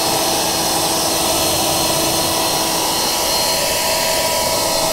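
Electric leaf blower, its tube removed, running steadily and blowing water off a car wheel: a rush of air with a steady motor whine on top.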